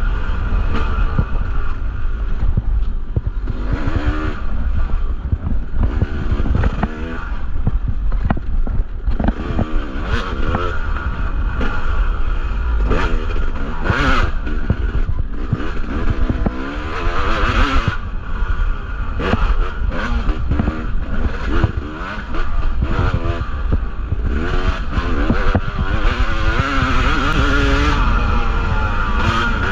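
Yamaha two-stroke dirt bike engine revving up and down hard and unevenly as the bike is ridden on a trail, with frequent sharp knocks and clatter.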